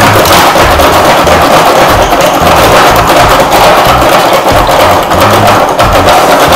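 Music with a steady percussive beat.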